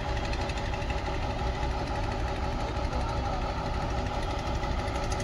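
Diesel engine of a Demag AC 200-1 mobile crane idling steadily.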